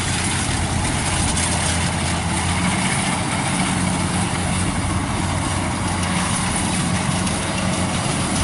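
Kubota rice combine harvester running steadily as it cuts and threshes rice: a constant low engine hum with a wide, even hiss over it.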